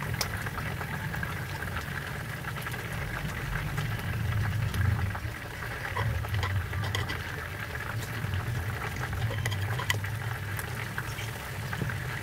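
Butter melting and sizzling in a nonstick frying pan over a gas flame, a steady hiss with many small crackles and pops: the butter stage of a roux for gravy.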